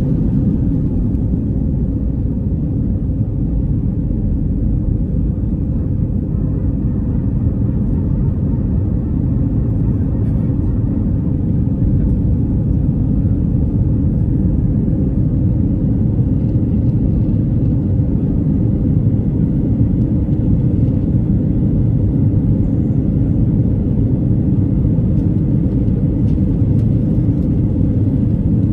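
Steady low rumble of an Airbus A319's engines and rushing air, heard from inside the passenger cabin in flight.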